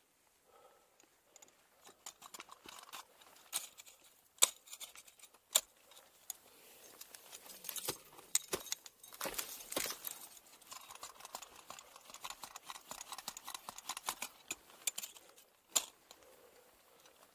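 Ice-climbing hardware, carabiners and ice screws on a harness, jangling and clinking with the climber's movements, with a few sharp knocks.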